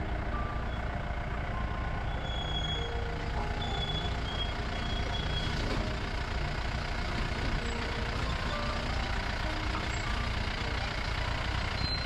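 Vehicle engine running steadily at low speed over a rough dirt trail, a continuous low rumble.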